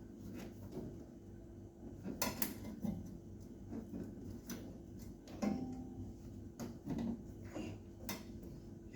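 Irregular light clicks, knocks and clatter of hands working with tools and fittings on a fridge's pipework, over a faint steady hum.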